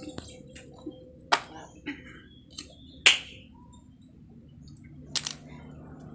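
A handful of sharp clicks and knocks at uneven intervals over faint background noise; the loudest come about three seconds in and about five seconds in.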